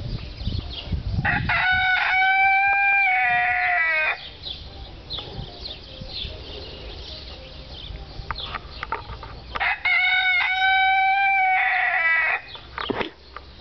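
A rooster crowing twice, about eight seconds apart: each crow is a long, loud call held on one pitch that drops away at the end. Softer chicken clucking comes between the crows.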